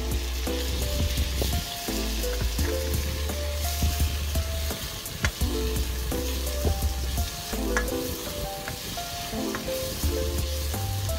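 Raw shrimp sizzling as they hit hot oil with sautéed tomatoes, onions and bell peppers in a non-stick wok, stirred with a spatula that gives a few sharp scrapes and clicks against the pan. Background music with a melody and a repeating bass line plays over it.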